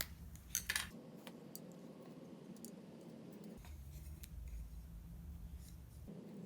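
Faint clicks and light rustling as PTFE thread tape is wrapped around a threaded fitting, with a few sharper clicks in the first second.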